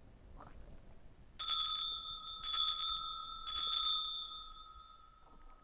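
Altar bells rung three times, about a second apart, each ring leaving clear high tones that die away slowly. They mark the elevation of the consecrated host at Mass.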